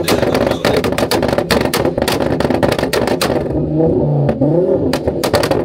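Car exhaust revved hard at a standstill: a rapid crackle of pops and bangs for about three seconds, then revs rising and falling with a few single bangs.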